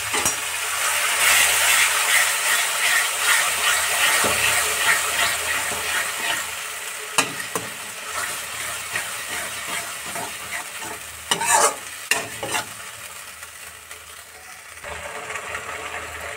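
Ground paste sizzling as it fries in hot oil in a metal kadhai, loudest in the first few seconds and then dying down, while a slotted spatula stirs it. A few sharp scrapes of the spatula against the pan stand out, the loudest near the end.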